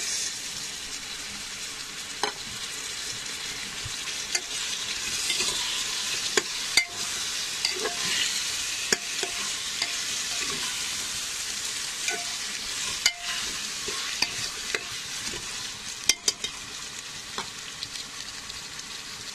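Tomatoes, potatoes and onion frying in hot oil in a pressure cooker, with a steady sizzle. A spatula stirs them, scraping and knocking against the pot in scattered sharp clicks.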